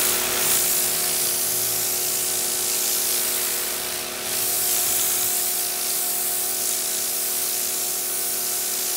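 Sun Joe SPX2688-MAX electric pressure washer spraying through an angled lance: a steady hiss of the high-pressure water jet over the even hum of its motor and pump.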